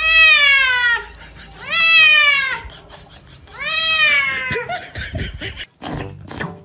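A wet cat being bathed in a sink yowls in protest three times, each long call rising and then falling in pitch. Near the end the sound cuts to music.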